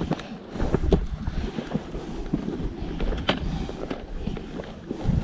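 Wind buffeting the microphone in low rumbling gusts, with scattered short knocks and scuffs.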